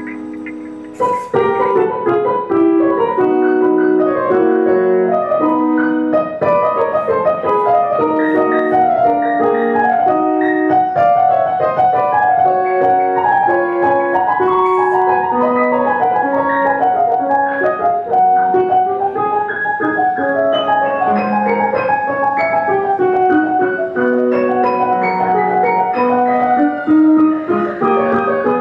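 Piano music played on a digital keyboard: a continuous flowing piece with a melody over chords. The playing breaks briefly about a second in.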